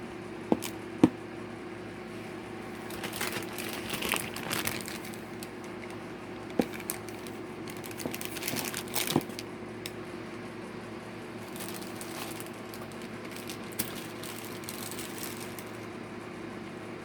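Plastic packaging crinkling in several bursts as it is handled, with a few sharp clicks and taps, over a steady low hum.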